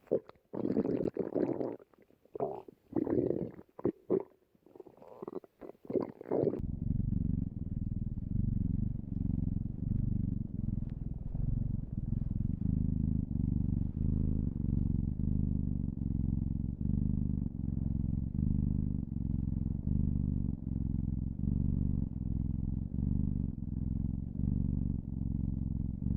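Stomach growling: irregular gurgles and rumbles for about six seconds, then a long, steady low rumble with a slight pulsing.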